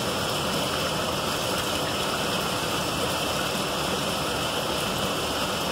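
Tap water running steadily from a faucet and splashing into a stainless steel sink basin.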